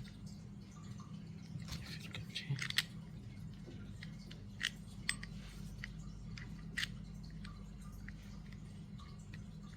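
Light clicks and taps from handling a Daiwa Caldia SW spinning reel while its handle is fitted: a quick cluster of clicks about two seconds in, then single clicks a few seconds apart, over a faint steady hum.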